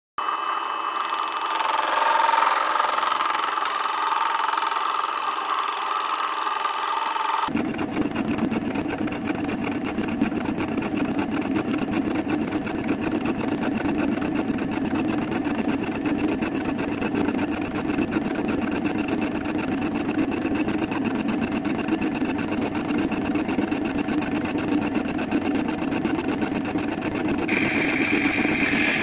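Metal lathe running, turning a 95 mm steel bar: a steady, dense mechanical noise with a fast, fine pulsing. The sound changes abruptly about a quarter of the way in, and a higher hiss joins near the end.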